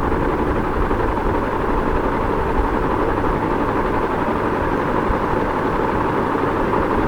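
Ceiling fan running steadily: a constant low whooshing hum with no change in speed.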